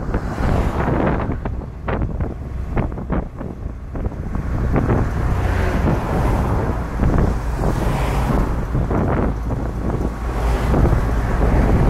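Wind buffeting the microphone of a camera mounted on top of a moving car, in irregular gusts over a constant low rumble of road and driving noise.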